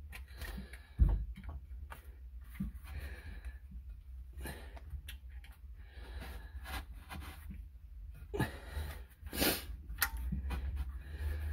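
Small metal hand tool clicking and scraping against a metal hose clamp, with one thump about a second in. Soft breathing close to the microphone comes and goes.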